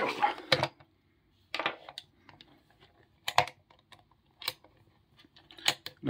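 Irregular light clicks and knocks of a small brass Castle 200/20 padlock and its keys being handled on a wooden desk, ending as the lock is set into a small bench vise.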